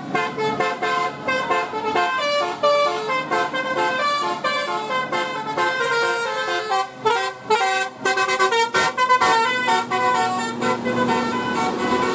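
Bus telolet horn, a set of musical air horns, playing a fast tune of short steady notes that change pitch several times a second, with brief breaks about seven and eight seconds in.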